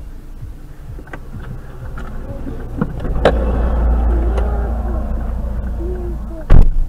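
Low rumble heard inside a stopped car, growing louder after a click about three seconds in, then one loud thump near the end.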